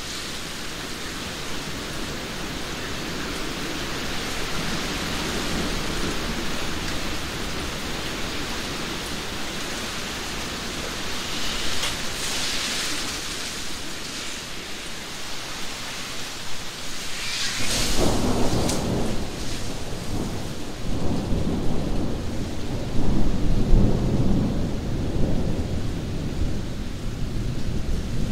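Heavy rain pouring down steadily in a rainstorm. About two-thirds of the way in, a sudden clap of thunder sets off a deep rolling rumble that swells twice more and keeps rolling under the rain.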